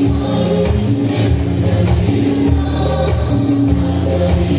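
Live band playing instrumental worship music: electric bass guitar, electric guitar and keyboard over a steady beat from a Roland electronic percussion pad struck with drumsticks.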